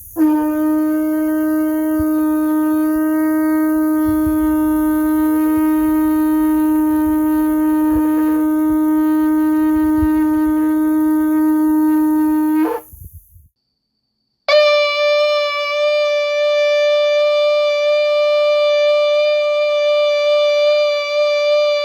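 Shofar blown in one long, steady held blast of about twelve seconds that cuts off, then after a short pause a second shofar blast starts at a noticeably higher pitch and holds steady.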